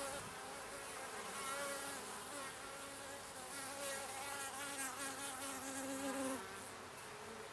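Honeybees buzzing around an opened hive: a steady hum made of several wavering tones as bees fly close by.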